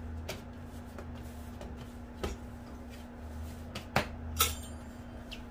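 Hands pressing and handling soft bread dough on a wooden cutting board, with about five short light knocks and taps, two of them close together around four seconds in, over a steady low hum.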